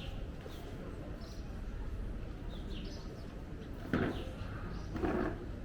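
Street ambience: a steady low hum with short, high chirps of small birds scattered through it. Two brief louder sounds come about four and five seconds in.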